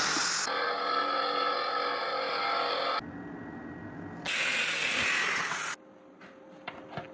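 Metalworking power tool noise in short, abruptly cut segments: loud hissing runs with a steady whine, broken by quieter gaps, and a few sharp clicks near the end.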